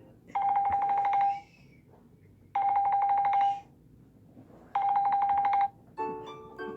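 Samsung Galaxy J7 Prime ringtone imitating an old telephone bell: three buzzing rings, each about a second long and about a second apart. A different melodic tone starts near the end.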